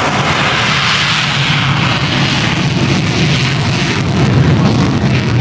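Jet engine running at high power: a loud, steady rush of noise with a low hum underneath.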